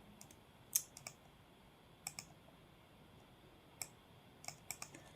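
Faint, sharp computer clicks, about eight of them at irregular intervals, some in quick pairs and a short cluster near the end.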